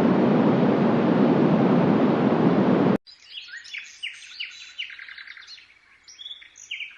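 Steady white noise from a Yogasleep Duet white noise machine, cutting off suddenly about three seconds in. Then comes recorded birdsong: many quick, high chirps and tweets.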